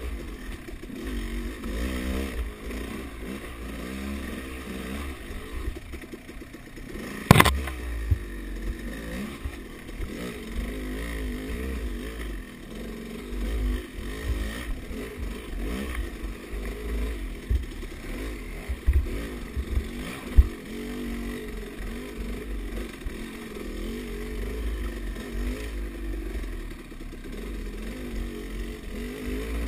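Dirt bike engine revving up and down as it is ridden along a rough woodland trail. A sharp knock about seven seconds in, with a few smaller thumps later, as the bike hits the rough ground.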